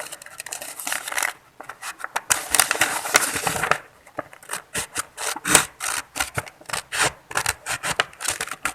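Scissors cutting through sheet paper: a rasping cut in the first half, then a run of quick snips about three a second.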